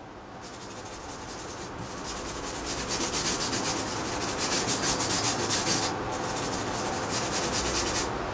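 Rapid back-and-forth hand rubbing on the fiberglass body of a Factory Five Mk4 Cobra replica, abrading the surface. It grows louder over the first few seconds and eases off briefly about six seconds in.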